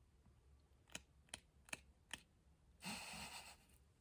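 Faint handling of a tarot deck: four light card clicks in quick succession, then a brief soft rustle about three seconds in.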